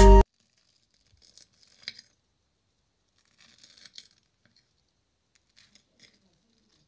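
Fork cutting into a crumb-coated fried potato donut: faint crunching and scraping of the crisp crust, in two short spells about two and four seconds in.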